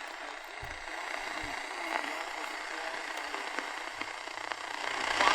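Static hiss from a Realistic DX-350 portable radio tuned to a weak, distant daytime medium-wave AM station, its talk barely audible under the noise. Two soft low thumps come in the first second and a half, and the sound grows louder near the end as the signal comes up.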